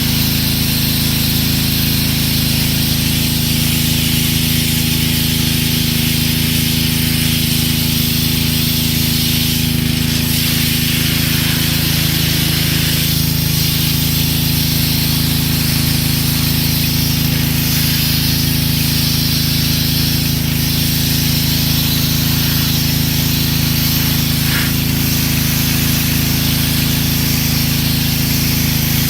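Pressure washer running steadily, a constant motor hum under the hiss of its water jet spraying the concrete.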